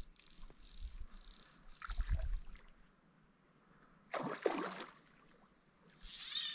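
Water splashing at the surface in short bursts, once about four seconds in and again near the end, with a low rumble early on.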